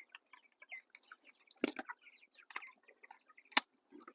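Scattered light drips and taps of rainwater, with a sharper click about three and a half seconds in.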